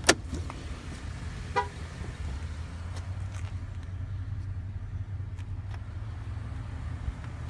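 A pickup truck's rear door clicks and clunks open at the start, a short beep sounds about a second and a half in, and a steady low rumble runs underneath.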